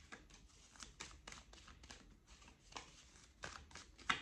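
A deck of oracle cards being shuffled by hand: a run of faint, irregular card flicks, a few a second.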